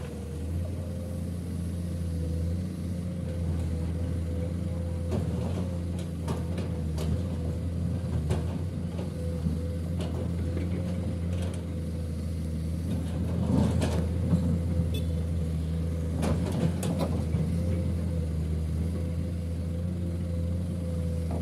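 Steady diesel engine drone of a Komatsu PC210 hydraulic excavator loading a dump truck, with scattered knocks and clatters, loudest in two bursts a little past halfway and about three quarters through, as the excavator's bucket drops soil and rock into the steel truck bed.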